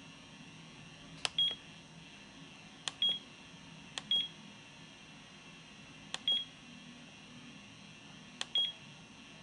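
Walkera WK-2402 radio transmitter keys being pressed to step through its stick-mode menu, each press a faint click followed by a short high beep from the transmitter's buzzer. Five presses come at uneven gaps, roughly a second or two apart.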